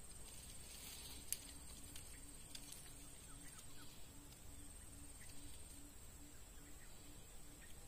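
Faint wild swamp ambience: a steady high-pitched insect whine and a low call pulsing about three times a second, with a few faint chirps. One sharp click comes about a second in.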